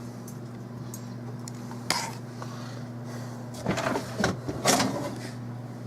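Clunks and knocks from a Whirlpool WRF560SMYB refrigerator's bottom freezer drawer and ice-maker bin being handled: one knock about two seconds in, then a cluster of several from about three and a half to five seconds in. A steady low hum runs underneath.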